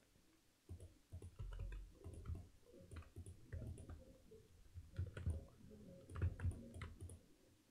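Quiet, irregular clicking of a computer keyboard and mouse, a few clicks a second, with soft low knocks under them.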